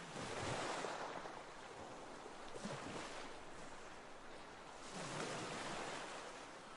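Faint ocean water noise: a soft wash that swells and fades, loudest about half a second in and again about five seconds in.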